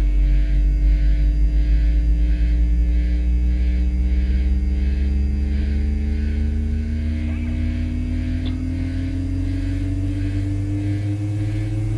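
Droning instrumental rock passage: a loud, sustained low hum with one tone slowly rising in pitch, over a faint, regular pulse.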